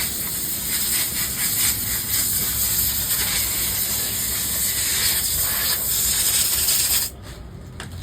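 Loud, steady hissing noise that cuts off abruptly about seven seconds in.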